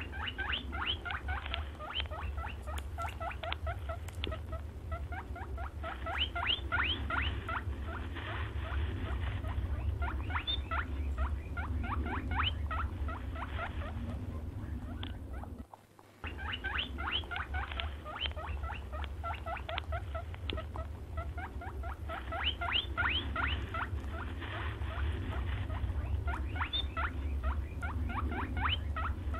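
Brown hare squeaking and chattering: rapid runs of short, sharp high squeaks, over a low steady hum. After a brief break about halfway through, the same passage starts over.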